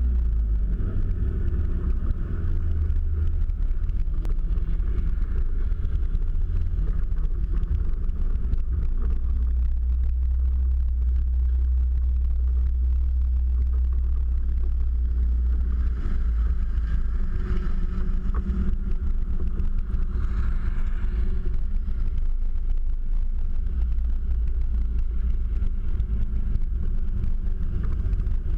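Toyota Hilux pickup driving over rough grass, picked up by a camera suction-cupped to its bodywork: a steady, heavy low rumble of engine and body vibration. Two brief swells come past the middle.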